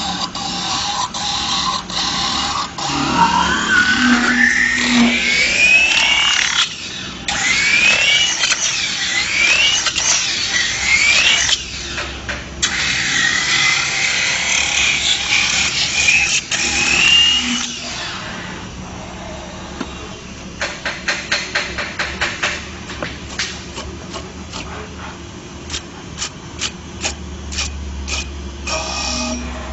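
CNC metal spinning lathe forming a sheet-metal lamp reflector: the forming roller scrapes over the spinning blank with loud squeals that glide up and down in pitch. In the last third this gives way to a quieter run of sharp, rapid clicks.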